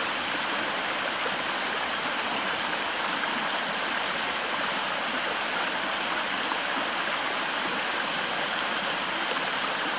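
A steady rushing noise, like running water, with a few faint ticks.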